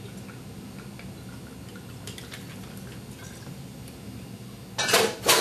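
Light rum poured from a bottle over ice in a tall Collins glass, a faint trickle with a few light ticks, then two loud, short clattering sounds near the end.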